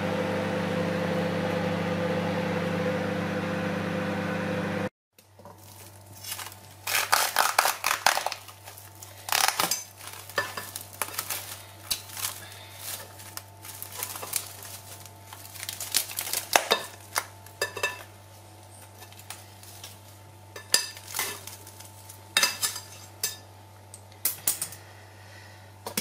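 Microwave oven running with a steady hum for about five seconds, which stops abruptly. Then plastic cling film is crinkled and peeled off a glass bowl, with many scattered crackles and a few sharp clicks against the glass.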